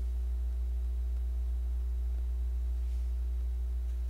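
Steady low hum with a few faint steady higher tones over it, and otherwise nothing distinct.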